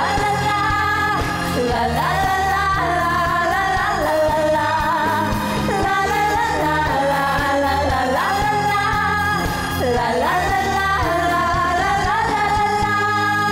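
A group of women singing a pop song together over a backing track with a steady bass line.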